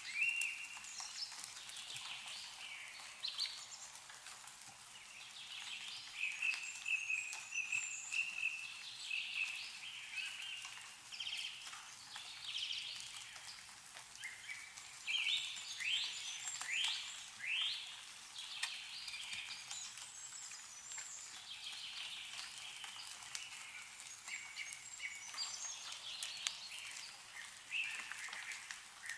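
Several small birds singing and chirping, overlapping, including a quick run of falling notes about halfway through, with faint scattered ticks of meltwater dripping from snowy trees.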